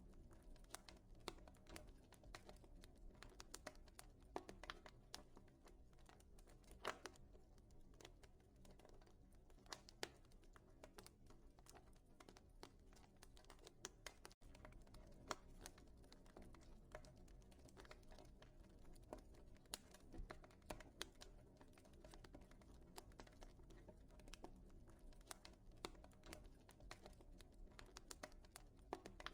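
Wood fire in a fireplace crackling quietly, with irregular small pops and snaps over a low, steady hiss.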